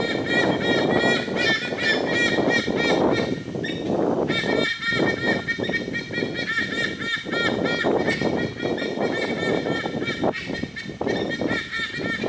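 White-bellied sea eagles calling: a rapid series of loud, goose-like honking notes, each rising and then falling in pitch, several a second, with a short break about three and a half seconds in. A steady rushing noise lies underneath.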